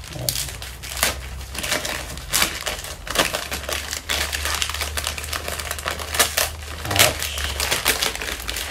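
Wrapping paper crinkling and crackling as a gift is torn open and unwrapped by hand, in quick irregular rustles.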